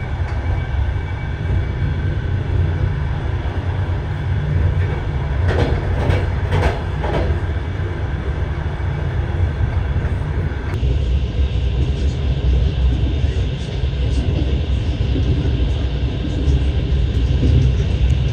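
Passenger train running on desert track, heard from inside the carriage: a steady low rumble of wheels on rails, with a few sharp rattles about six to seven seconds in. The sound changes abruptly about eleven seconds in.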